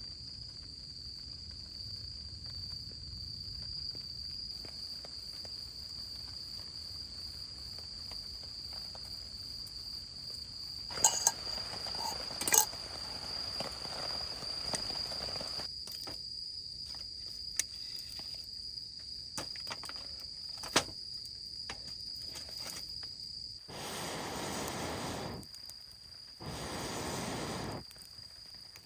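An insect sings one steady, high, unbroken note. A few sharp snaps come about midway, and near the end there are two spells of broad rushing noise, a second or two each.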